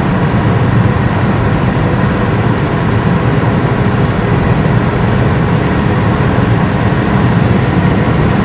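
Car driving at a steady speed, heard from inside the cabin: an even, unbroken drone of engine and road noise.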